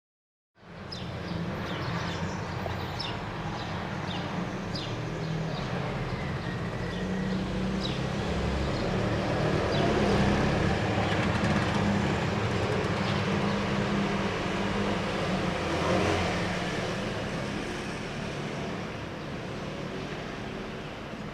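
Outdoor traffic noise: a steady low rumble of road vehicles that swells in the middle and eases off towards the end, with a few short high ticks in the first few seconds.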